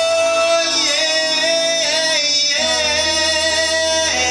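Male pop singer singing live into a handheld microphone, drawing out long held notes over a steady musical accompaniment.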